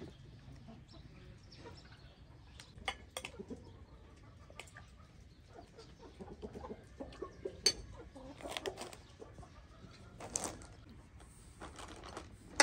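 Chickens clucking, with short sharp clinks of a spoon against plates and bowls as food is dished out.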